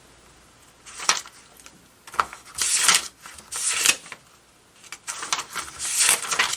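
Pages of a paper instruction manual being turned and handled: a run of short paper rustles, with a longer stretch of rustling near the end.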